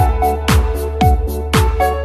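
Background electronic dance music: a steady kick drum about twice a second under held synth notes and a bass line.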